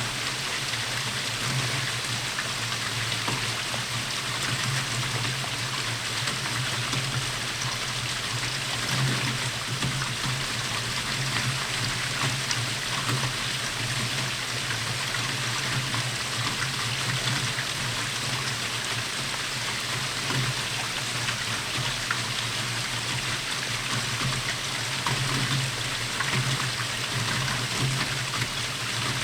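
Steady rainfall, an even hiss dotted with the patter of many individual drops. A steady low hum runs underneath.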